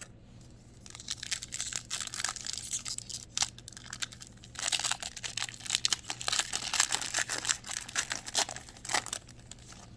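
A 2001 Upper Deck Pros & Prospects baseball card pack wrapper being torn open and crinkled by hand: a run of sharp crackles that grows louder and denser about halfway through.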